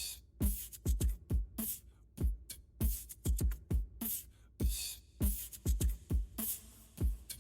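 Background music: a beat of deep kick drums that drop in pitch, with sharp snare or clap hits between them, without vocals.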